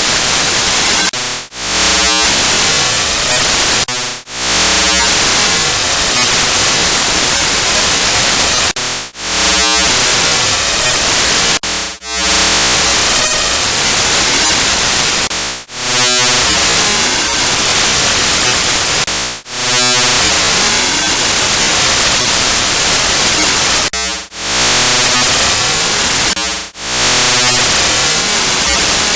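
Loud, harsh static hiss, cut by eight brief dips at uneven gaps of about three to five seconds. In each dip a warbling, phasing whoosh sweeps through. The uploader takes it for the sound of electromagnetic exposure.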